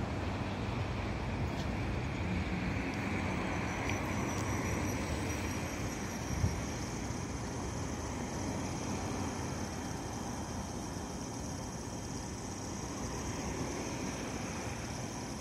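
Tram running slowly away over curved track, its running noise gradually fading. A steady high-pitched whine comes in a few seconds in, and there is a single knock about six seconds in.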